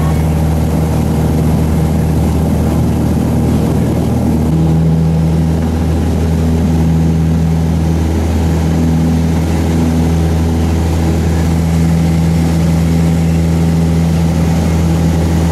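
Piper PA-28 Cherokee's piston engine and propeller running at takeoff power, a loud steady drone heard from inside the cabin as the plane rolls down the runway and lifts off into the climb.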